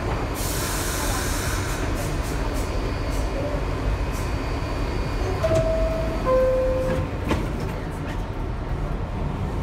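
New York City R62A subway car at a station stop sounding its door-closing chime, two descending tones a little past the middle, then the doors shutting with a knock about a second later. The car's steady hum runs underneath, with a short hiss near the start.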